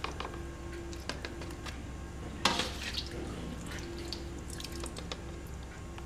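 Soft feta curd and whey being tipped from one plastic mould into others: small wet plops and drips of whey, with one louder splat about two and a half seconds in.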